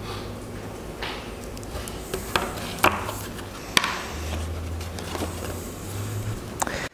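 Handling noise from a book: rustles and a few sharp taps and clicks over a low steady hum.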